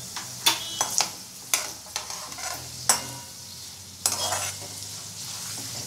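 Peanuts and whole spices frying in hot oil in a metal wok, sizzling steadily, while a metal slotted spoon stirs them, clinking sharply against the pan several times and scraping across it about four seconds in. The oil tempering for poha chivda, with the peanuts being roasted until reddish.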